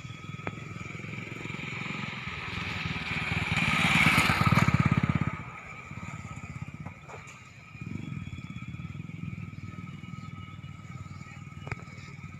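A motorcycle passing close by: its engine grows louder to a peak about four to five seconds in, then drops away quickly. Another engine comes up about eight seconds in and runs on more faintly. A steady high-pitched two-tone hum runs underneath.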